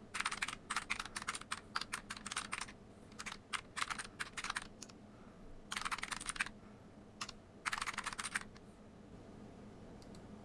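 Typing on a computer keyboard: four quick bursts of key clicks with short pauses between. The typing stops shortly before the end.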